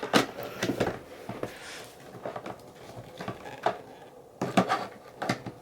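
Scattered plastic clicks and knocks, about ten in all, from a Black & Decker Pivot handheld vacuum being handled, its body pivoted around and set into its charging dock.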